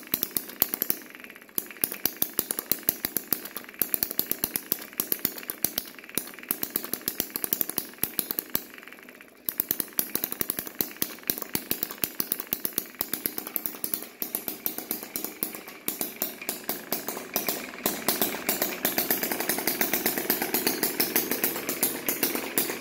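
Small single-cylinder spark-ignition engine running in rapid firing pops, cutting out briefly about a second in and again around nine seconds, then picking up and running faster and louder near the end.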